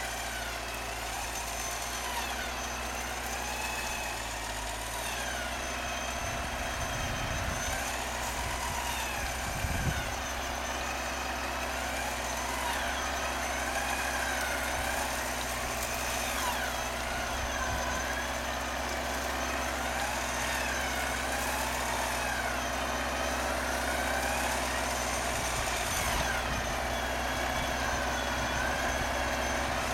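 Hyundai Galloper 4x4's engine running steadily at low revs as it creeps through deep snow. A higher tone wavers up and down over it throughout.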